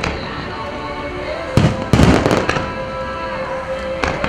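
Fireworks booming and crackling over music: a cluster of bursts about one and a half to two and a half seconds in, and another near the end. Music with a long held note plays throughout.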